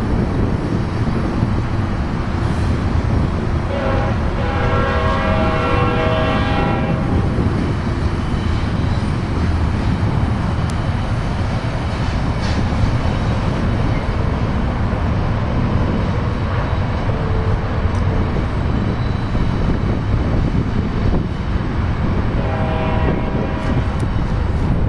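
Union Pacific freight train of double-stack container cars rolling past with a steady rumble of wheels on rail. A locomotive horn sounds a long blast about four seconds in and again near the end.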